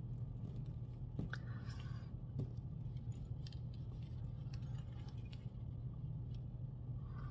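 Crochet keychains being handled, with scattered faint clicks and ticks of their metal key rings, over a steady low hum.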